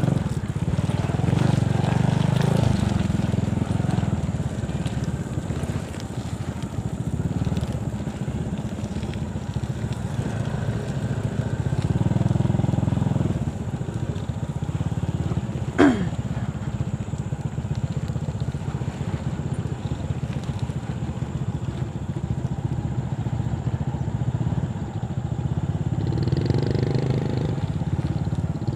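A small motorcycle engine running steadily while riding a muddy dirt track, its level swelling and easing with the throttle. A brief, sharp falling squeal cuts through once, about halfway through.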